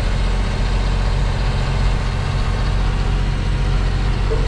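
Tipper truck's diesel engine running steadily at low speed while the truck creeps along, heard from inside the cab.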